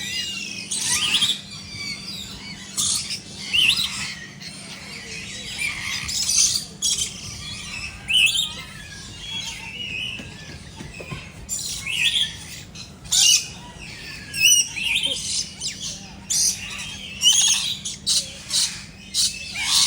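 Birds calling: loud, short, high-pitched calls repeated irregularly every second or so, some rising and falling in pitch.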